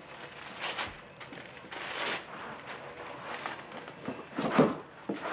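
A small child handling the cardboard box of a toy globe: scattered short rustles and bumps, with the loudest one about four and a half seconds in.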